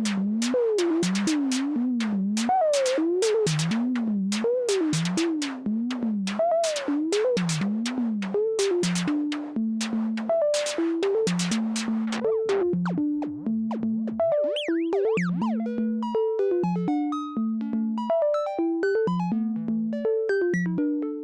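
Behringer SY-1 Syncussion analog percussion synthesizer playing dry, in a rapid repeating pattern of short hits. For about the first nine seconds each hit is noisy with its pitch sweeping up and down; after that come clean short tones stepping between a few pitches, with a couple of pitch glides about two-thirds of the way through.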